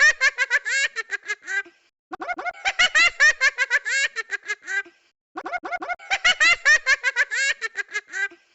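Talking Ginger's high-pitched, sped-up cartoon voice giggling in three quick bursts of rapid chirpy laughter, with short pauses between them.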